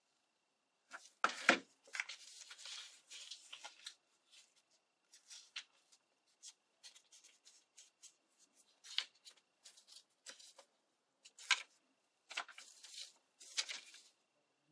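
Book-page paper petals rustling and crinkling in irregular bursts as they are handled, glued and folded by hand, with a heavier knock about a second in.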